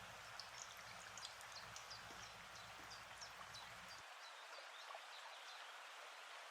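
Faint sizzling of hot frying oil, with many quick fine crackles.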